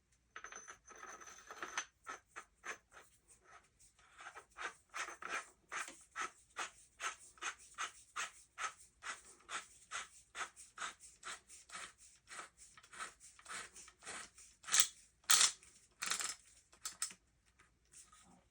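Short metal-on-metal scraping strokes in a quick, even rhythm of about three a second, as a threaded fake suppressor or locking ring is turned on a 12-gauge shotgun's threaded barrel. A few louder scrapes come near the end.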